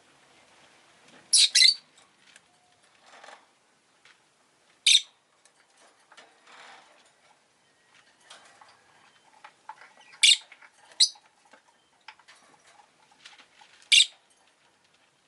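Rosy-faced lovebird giving short, sharp, high chirps: a quick pair early, then single chirps spread a few seconds apart, with faint scuffling noises between.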